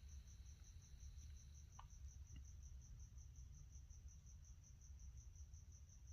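Near silence: room tone with a faint low hum and a faint high-pitched tone pulsing about six times a second, plus a couple of soft ticks about two seconds in.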